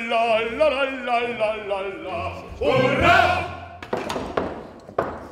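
Opera chorus singing together with vibrato, peaking in a loud burst about three seconds in and then fading, with a few knocks or thumps near the end.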